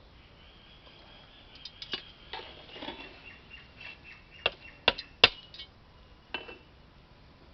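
Long metal spatula turning cooked egg biryani in a large aluminium pot: scraping and a string of sharp metallic knocks against the pot's rim and side, with the three loudest close together just past the middle.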